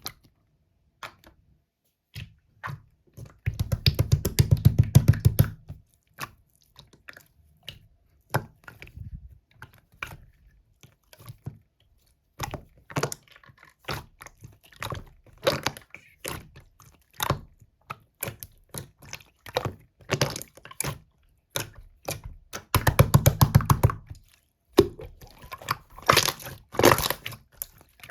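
Slime being pressed and stretched by hand, giving sharp crackling pops and clicks as trapped air bubbles burst. Two dense runs of rapid pops come a few seconds in and again near the end.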